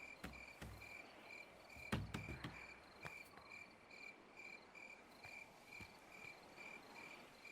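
Faint cricket chirping: a steady run of short, evenly spaced chirps, about two to three a second. A few soft knocks come about two seconds in.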